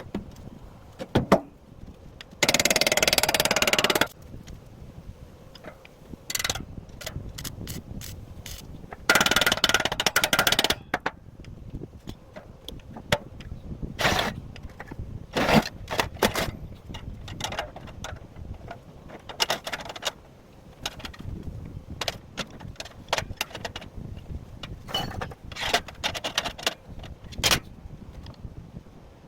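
Steel being worked for a drum roaster: two short bursts of harsh noise from a power tool or welding, each under two seconds, with many sharp clanks and taps of metal in between.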